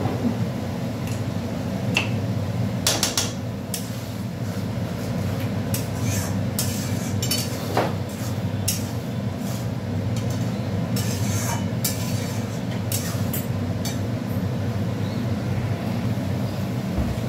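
Metal spatula scraping and clinking against a cooking pan at irregular moments as the spiced prawn masala is stirred and sautéed, over a steady low hum.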